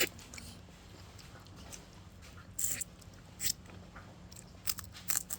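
Close-up eating sounds from someone working through a cooked fish head: a handful of short mouth smacks and clicks of chewing and sucking, spread out with quiet between them, over a steady low hum.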